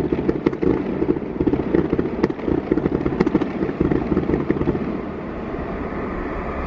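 Fireworks display: a dense, continuous rumble of many rapid bangs and crackles with occasional sharper cracks, settling into a steadier rumble about five seconds in.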